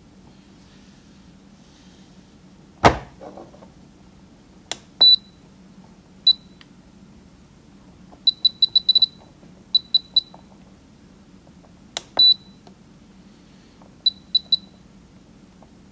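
Spektrum DX6i radio transmitter beeping as its scroll roller is turned and pressed through the menus: short high beeps, some single and some in quick runs of three to six, with a few sharp clicks. A louder knock comes about three seconds in.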